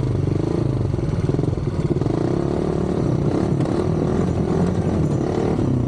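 Polaris RZR 170's small single-cylinder four-stroke engine running steadily as the side-by-side is driven over rough ground, its pitch rising and falling slightly with the throttle.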